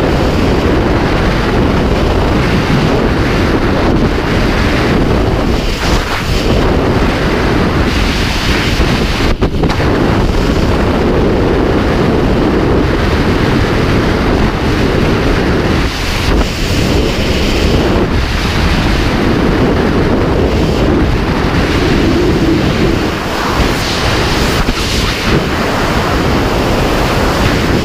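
Loud, steady wind noise of skydiving freefall blasting across a helmet-mounted camera's microphone.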